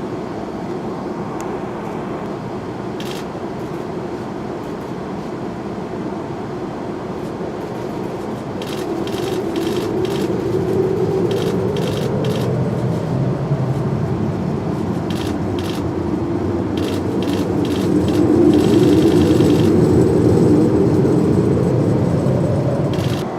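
Jet aircraft engine noise running steadily, swelling louder twice and rising in pitch near the end. A run of short sharp clicks comes through the middle.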